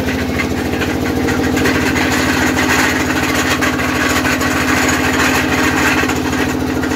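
Diesel engine driving a sugarcane mill (trapiche), running steadily with a fast, even beat.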